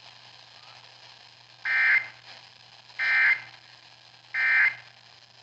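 NOAA Weather Radio's SAME end-of-message code: three short, buzzy digital data bursts about a second and a quarter apart over faint radio hiss and hum, marking the end of the warning broadcast.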